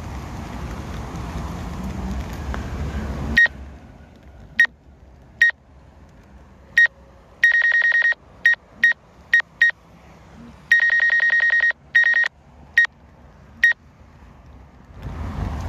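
Electronic beeping, all at one high pitch: about a dozen short single beeps and two longer bursts of rapid beeping, each about a second long. For the first three seconds there is a steady rumbling noise that cuts off suddenly; it returns near the end.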